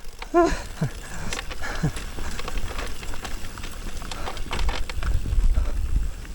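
Electric mountain bike rattling over rough trail, with many short clicks and knocks from the bike, a couple of brief grunts from the rider near the start, and a low rumble of tyres and wind building over the last two seconds.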